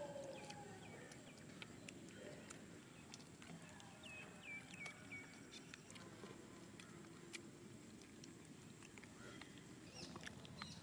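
Near silence: faint outdoor background with scattered small clicks and a brief run of faint bird chirps about four seconds in.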